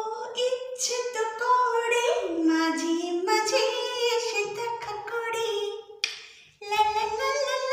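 A song with a high female singing voice holding long notes, dropping out briefly about six seconds in.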